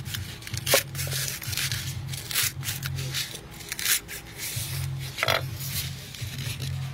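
Large kitchen knife cutting lemongrass stalks on a wooden chopping board: a run of irregular cutting strokes, with the blade scraping across the board as the pieces are gathered near the end. Background music with a pulsing bass plays underneath.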